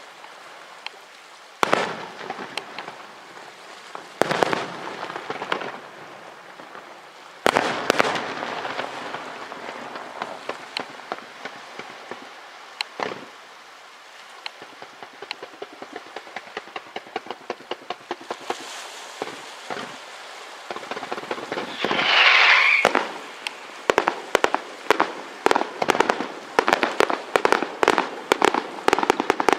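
Aerial fireworks display: single shell bursts with crackling tails, then a long run of rapid small pops. Near the end comes a fast barrage of sharp bangs, several a second.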